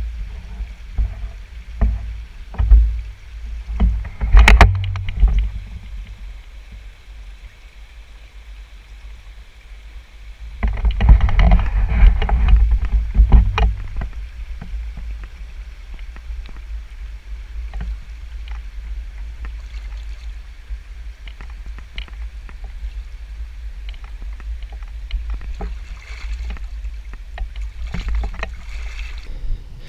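Wind rumbling on an outdoor action-camera microphone, gusting hardest in the first few seconds and again from about ten to fourteen seconds in, with scattered light taps.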